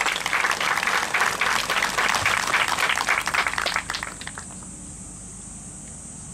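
Golf gallery clapping to welcome a player just announced at the tee, the applause dying away about four seconds in.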